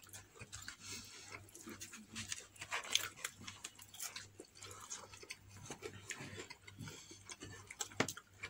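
Crispy fried chicken being torn apart by hand and chewed: soft, irregular crackling of the breading and mouth sounds, with a sharper crackle about three seconds in and another near the end.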